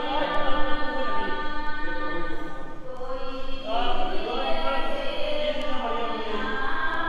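Sikh devotional singing (kirtan) in a slow chant, with long held notes that glide up and down over a steady held tone.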